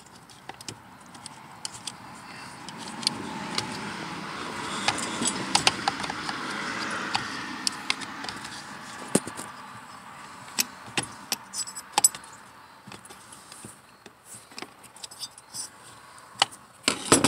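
Scattered light clicks and clinks of metal tools and plastic chainsaw parts being handled during hand disassembly of a Stihl MS 170's engine. Under them a broad rushing noise swells up and fades away around the middle.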